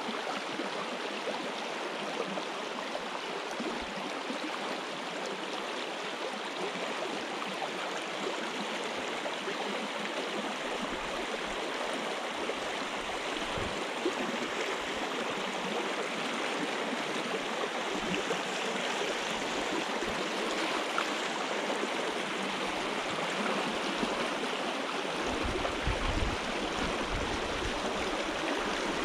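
A shallow river riffle rushing steadily over stones, with a few brief low rumbles, the strongest near the end.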